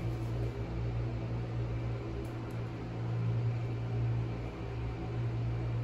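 A steady low hum with an even hiss over it, the drone of a running appliance in a small room.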